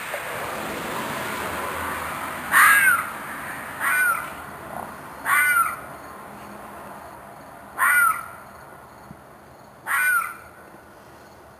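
An unidentified night animal's harsh screeching cry, repeated five times, each call short with a falling pitch, a second or two apart; the animal seems to be in distress and could be a fox or a coyote.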